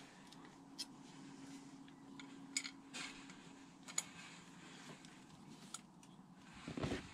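Small metal engine parts being handled and fitted by hand: a few sharp, scattered clicks and taps, then a louder rustling clatter near the end.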